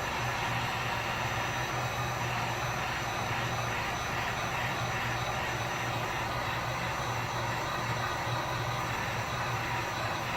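Hot-air gun blowing steadily, a continuous whooshing rush with a low hum, heating the phone screen to soften its adhesive.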